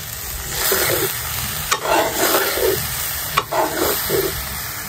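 Long metal ladle scraping and stirring thick saag in a metal kadhai, stroke after stroke, with a couple of sharp clinks of metal on the pan. Under it the greens sizzle as they fry in oil with onion, garlic and chilli.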